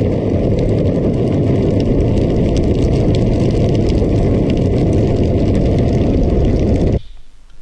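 Wind buffeting the microphone together with the rumble of a drift trike rolling over asphalt at speed, a loud, steady roar. It cuts off suddenly near the end.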